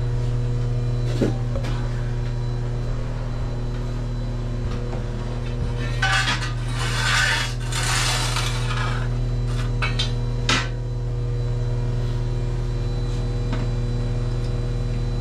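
Ash and coals being scraped and swept out of a wood-fired pizza oven's floor with metal tools: a rough scraping stretch midway, with metal clinks and a sharp knock just after it. A steady hum runs underneath.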